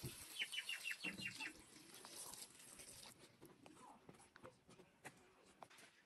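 Water poured from a plastic jerrycan splashing into a metal bowl of berries for about three seconds, with a quick run of high chirps over the start of the pour, then a few faint ticks.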